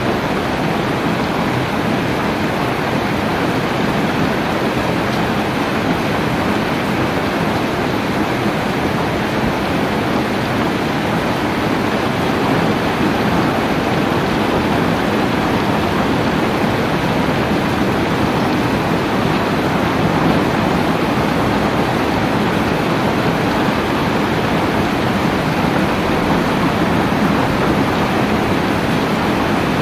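Steady rainfall, an even, unbroken hiss that holds at the same strength throughout.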